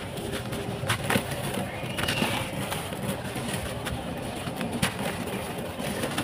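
Dry sand-and-cement clump crumbled by hand, giving a gritty crunching with scattered sharp crackles, and fine powder and small pieces falling into a container of dust.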